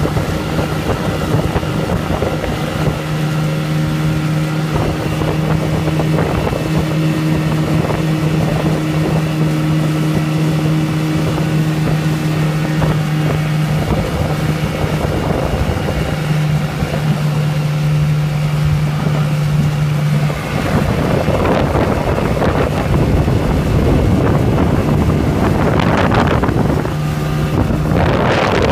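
Suzuki DT30 two-stroke three-cylinder outboard motor running steadily at speed, driving an inflatable boat. From about two-thirds of the way through, wind buffeting the microphone grows louder and partly covers the engine's steady tone.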